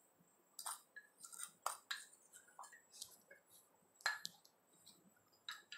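Faint, scattered light clicks and clinks of a spoon against a small bowl as salt is spooned into a pan of gravy, the loudest a little after four seconds in.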